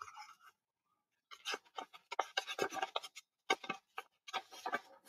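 Faint paper rustling and crackling from the pages of a picture book being handled and turned, in irregular strokes starting about a second in.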